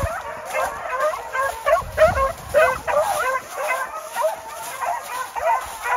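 Hunting dogs yelping and barking in quick, overlapping high calls, several a second, as they run a rabbit.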